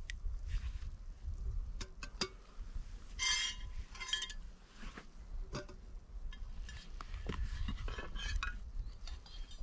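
Metal camp cookware and utensils clinking and knocking in a string of short knocks, with two brief ringing clatters about three and four seconds in.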